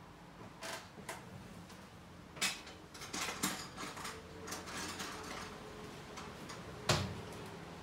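Scattered knocks, clicks and scratchy rustles, with one louder thump about seven seconds in.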